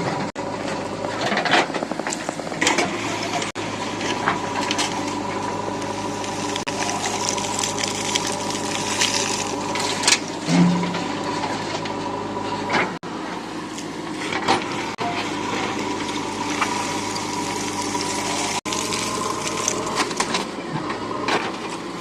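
JCB 3DX backhoe loader's diesel engine running steadily under a continuous rushing noise, with scattered short knocks as it works mud into the tipper.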